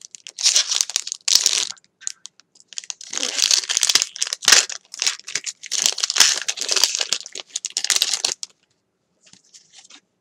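Pokémon trading card booster pack's foil wrapper being torn open and crinkled by hand, crackling in bursts for about eight seconds before stopping.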